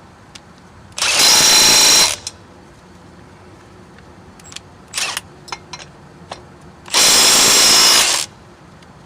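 Milwaukee M12 Fuel Stubby 1/2-inch cordless impact wrench running in two bursts of about a second each, roughly six seconds apart, with a few small metallic clicks between them.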